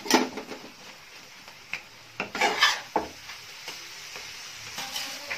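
Steel spatula stirring and mashing a cooked tomato-and-onion masala in a frying pan, with several scraping strokes and knocks against the pan over a steady sizzle.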